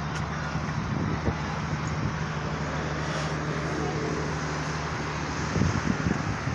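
Road traffic noise: a steady low engine hum over a general road din. Wind buffets the microphone near the end.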